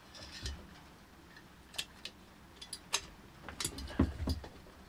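Scattered small metal clicks and ticks as a bolt is worked into the muffler of a Husqvarna 365 chainsaw with a T-handle wrench, with a soft thump about four seconds in.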